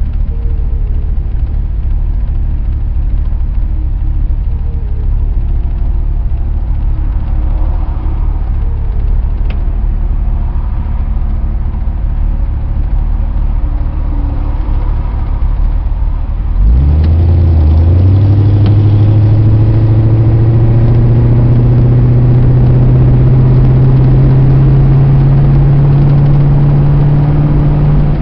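Vehicle engine idling with a low rumble while stopped, then, about two-thirds of the way in, it revs up as the vehicle pulls away. Its note jumps in pitch, then climbs slowly and steadily under acceleration.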